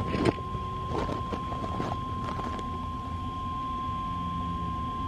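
Loudoun ES-5000DC electronic siren's horn speakers sounding a single steady electronic tone of about 1 kHz: the NOAA weather radio alert tone, which marks the start of an automatically relayed test alert. Brief bursts of rushing noise sound over it at the start and again between about one and two and a half seconds in.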